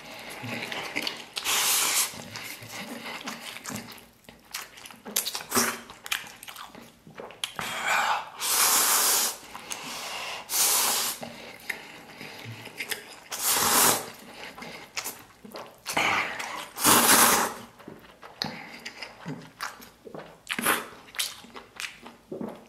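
A person slurping noodles loudly from a bowl, about five long, noisy slurps with quieter pauses between them.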